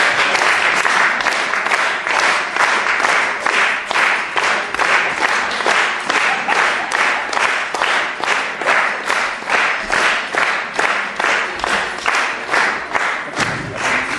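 Audience applauding and clapping along in a steady rhythm, the claps falling at even spacing, a few a second.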